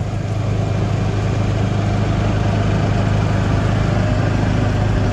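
Golf cart driving along a paved road, its motor giving a steady low drone under a haze of wind and tyre noise.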